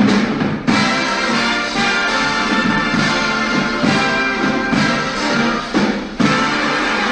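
Background music: an orchestral piece with brass, at a steady level throughout.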